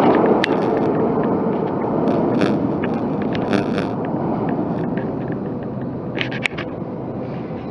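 Metro train rumbling in the station tunnel and fading steadily as it runs away, with scattered clicks and a brief squeal near the end.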